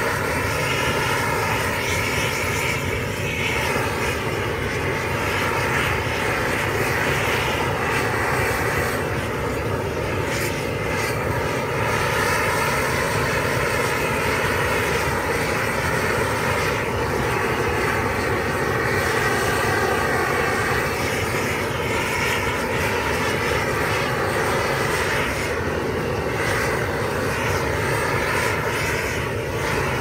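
Large flamethrower-style torch blasting a continuous jet of flame: a loud, steady rushing roar with a slowly wavering tone.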